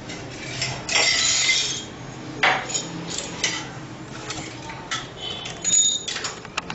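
Kitchen utensils being handled: scattered light clinks and knocks, a short rustle about a second in, and a brief ringing clink near the end.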